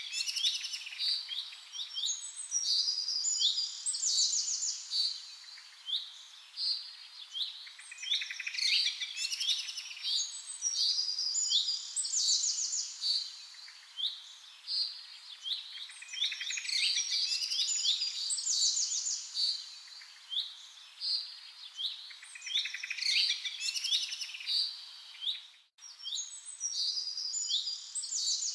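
Birds singing: a continuous chorus of varied chirps, whistled notes and fast trills, cut off by a brief gap near the end.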